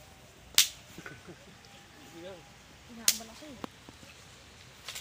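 Sharp pops from a small wood cooking fire, three loud cracks about two and a half seconds apart with a smaller one between.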